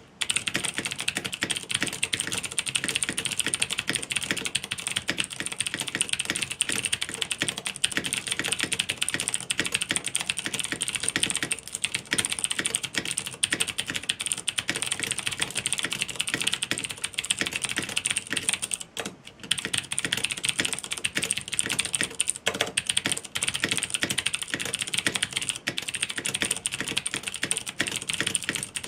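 Continuous fast typing on a mechanical keyboard with stock clicky Cherry MX Blue switches and Ducky PBT keycaps, with a brief pause about two-thirds of the way through.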